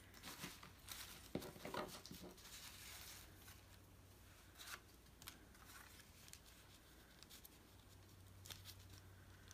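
Faint rustling and crinkling of paper being handled and laid onto a paper tag, busiest in the first couple of seconds, then a few light taps and clicks.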